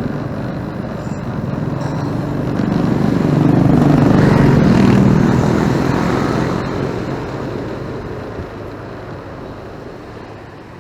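Motorcycle riding on a city road: engine running and road noise with traffic around, growing louder about four seconds in and then fading steadily away.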